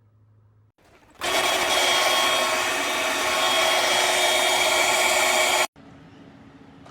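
Vacuum cleaner motor running at a steady whir, switching on abruptly about a second in and cutting off suddenly near the end.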